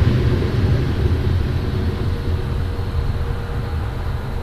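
Freight train of covered hopper cars rolling slowly past, a steady low rumble that eases off a little, with a faint steady tone coming in about halfway through.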